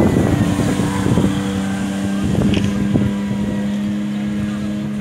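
Speedboat engine running at speed, a steady droning tone that slowly fades as the boat pulls away, with rushing wake noise and wind buffeting the microphone.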